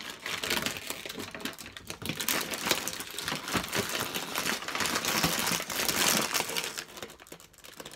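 Plastic toy packaging crinkling and rustling as it is handled, growing quieter near the end.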